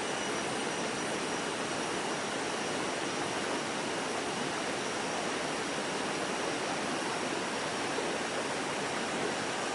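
Steady rushing of a forest stream or waterfall, an even wash of water noise with no breaks.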